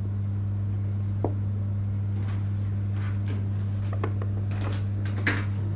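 Steady low electrical mains hum, with a few faint taps and rustles scattered through it, the clearest one about five seconds in.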